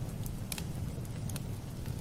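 Rain falling steadily with a low rumbling wash, mixed with the crackle of a wood fire: several sharp pops and snaps, the loudest about half a second in.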